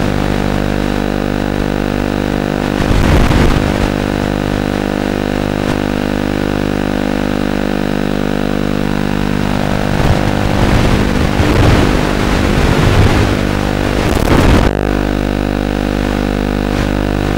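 Onboard audio of a 5-inch FPV racing quadcopter in flight: a steady, even buzz under rushing motor, propeller and wind noise, which surges louder about three seconds in and again from about ten to fifteen seconds, where the throttle is pushed.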